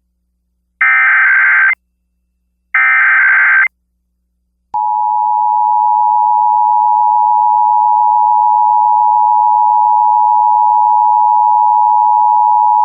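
Emergency Alert System tones over FM broadcast radio: two one-second bursts of the digital SAME header data, about a second apart, then after a short pause the steady two-tone EAS attention signal. These tones open an EAS required monthly test.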